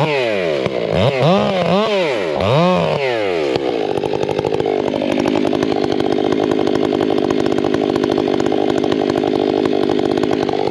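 Two-stroke chainsaw revved in several quick blips, its pitch rising and falling each time, then held at steady high revs for about seven seconds.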